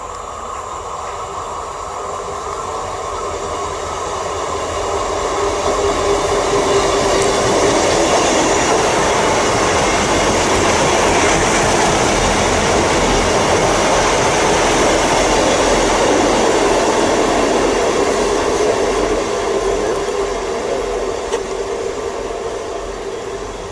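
Class 159 diesel multiple unit on the rails, wheels and engines building to a loud peak after a few seconds, holding, then easing off near the end, with some clatter of the wheels.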